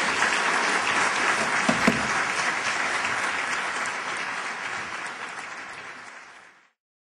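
Audience applauding, steady at first and then dying away over the last few seconds before it cuts off.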